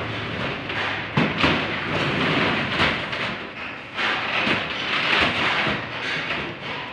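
Plastic water containers being loaded into a truck's metal cargo box: hollow knocks as they are set down and stacked, over a steady scraping and sliding noise.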